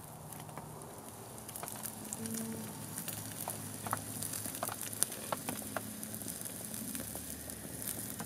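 Strip steak sizzling on a wire grill over campfire coals, with scattered sharp pops and crackles. The sizzle grows louder over the first few seconds.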